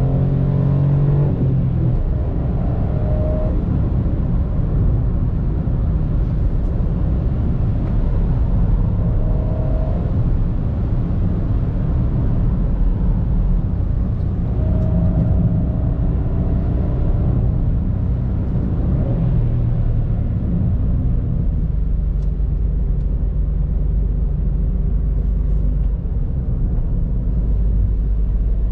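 Mitsubishi Space Star 1.2 MIVEC's three-cylinder petrol engine and tyre noise heard from inside the cabin while driving. The engine note is strongest in the first second or two, then a steady low rumble.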